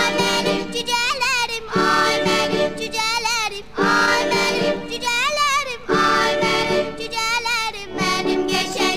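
Background music: a singing voice with held, wavering notes over instrumental backing.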